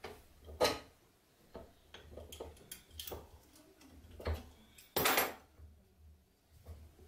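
Steel clamps being tightened around a knife blank in a bench vise: scattered clinks and knocks of metal clamp parts, with a louder scrape about five seconds in.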